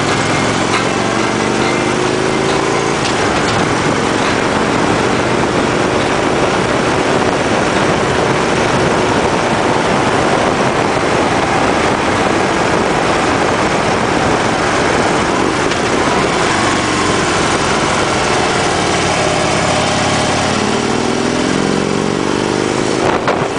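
2012 Harley-Davidson Ultra Classic's V-twin engine running on the move, under a heavy rush of wind noise. The engine pitch falls in the first second, then rises and falls again in the last third.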